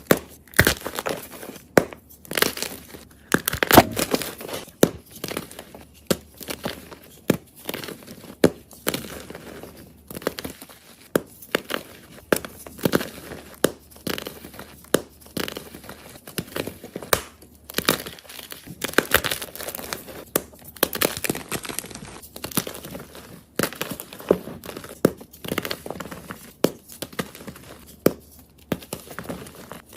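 Soft blocks of gym chalk being crushed by hand, a close series of irregular crunches and crumbling snaps, several a second.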